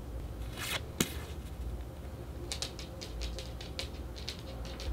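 Stiff Polaroid-style photo cards being handled: a short brushing slide, a sharp snap about a second in, then a run of quick light clicks, a few a second, as the cards are shuffled through.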